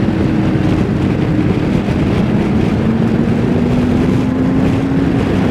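BMW K1600 GT's inline six-cylinder engine running smoothly at road speed under a steady rush of wind. Its tone drops in pitch about two seconds in, then climbs slowly as the bike pulls.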